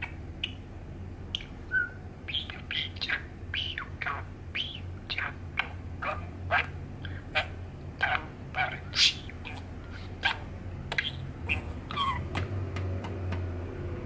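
Male budgerigar's soft muttering chatter: a quick run of short chirps, clicks and little warbled notes, several a second. Under it a steady low hum grows louder near the end.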